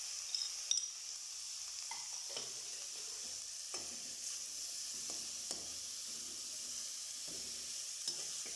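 Cubed chicken sizzling steadily in hot oil in an aluminium karahi, with a few light taps and scrapes of a metal spoon stirring it.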